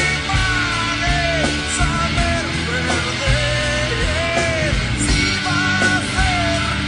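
Rock song from a studio album: a full band with a steady beat and a wavering melody line over it.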